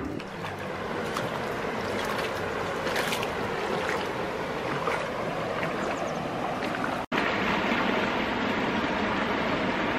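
Steady rushing of a flooded river's water, with a brief dropout about seven seconds in.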